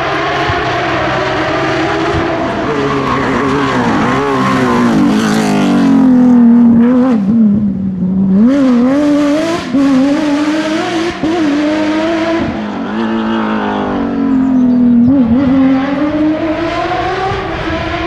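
Porsche 997 GT3 rally car's flat-six engine at racing speed, loud and close. The engine note drops steeply a few seconds in, then rises and falls repeatedly through gear changes as the car passes, dips again, and climbs near the end.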